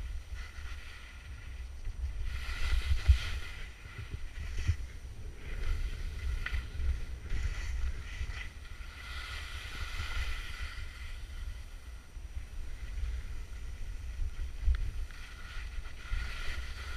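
Skis hissing and scraping over snow, swelling and fading several times, over a low buffeting of wind on the microphone.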